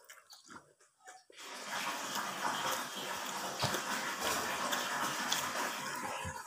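Water running, as from a tap, starting suddenly about a second and a half in and continuing steadily, with a few light knocks mixed in. Faint eating clicks come before it.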